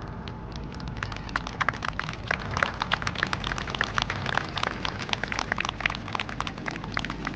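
Crowd clapping, many hands at once, swelling about a second in and staying dense, over a low rumble of the outdoor crowd.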